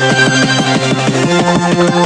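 Electronic music with a fast, steady pulsing beat under a synth melody.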